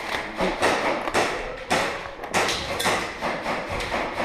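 A series of sharp knocks and thuds, irregularly spaced, roughly one every half second.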